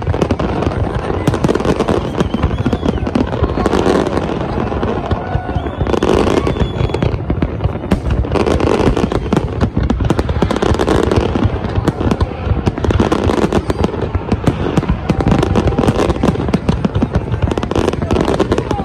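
Fireworks display at full barrage: many shells bursting in rapid, unbroken succession with crackling, with crowd voices underneath.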